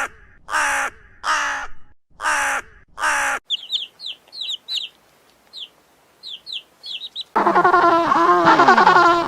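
A crow cawing five times in harsh, evenly spaced calls, followed by faint, quick high chirps that fall in pitch from a small bird. About seven seconds in, a loud chorus of many overlapping animal calls starts abruptly.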